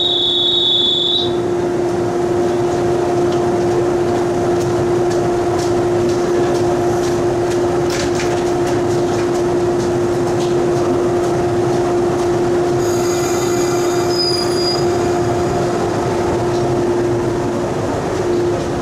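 Electric train at a station platform: a steady hum throughout, with a short high tone in the first second and scattered clicks a few seconds in.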